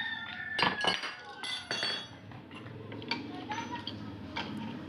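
Metal parts and tools clinking and knocking, several sharp clinks in the first two seconds and fainter ticks after, while a motorcycle's steering head is being reassembled. A steady low hum rises underneath from about two seconds in.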